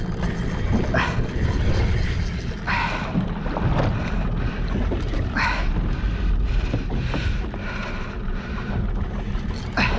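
Wind buffeting the microphone over the rumble and wash of sea water around a small boat, with a few short swishes now and then.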